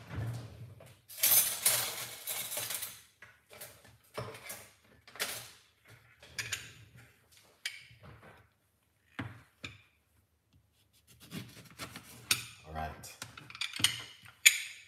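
Kitchen handling sounds: a rustle lasting nearly two seconds about a second in, then scattered clatters and knocks of dishes and utensils, busiest near the end.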